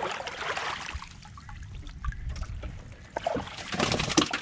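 Water splashing and trickling around a small wooden boat, with a run of knocks and clicks from about three seconds in.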